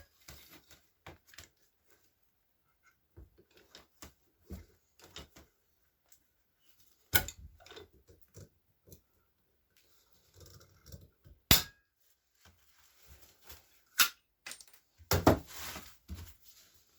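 Scattered clicks and knocks of small metal parts and tools being handled while a rivet and washer are set through a leather belt patch, with four sharper knocks several seconds apart.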